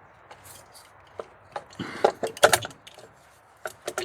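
Hand tools and engine parts being handled during an engine teardown: scattered clicks and light knocks with some rubbing, a quick cluster of knocks about two seconds in and more clicking near the end.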